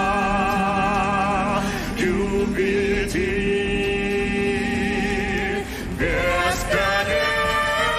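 Male vocal quartet singing long held notes in harmony with vibrato, moving to a new chord about two seconds in and again about six seconds in.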